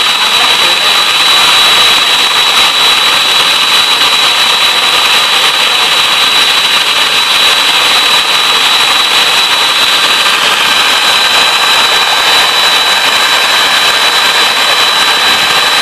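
Electric mixer running steadily at high speed, whipping eggs for sponge cake batter, with a constant high whine over a whirring hiss.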